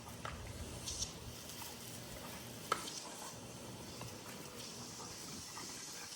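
Garden hose spraying water, a steady hiss and patter of water hitting the ground, with a few light clicks and one sharp click a little before the middle.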